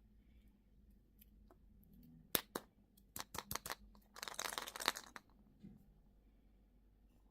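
Candy packaging being handled: a few sharp plastic clicks, then about a second of crinkling, tearing wrapper.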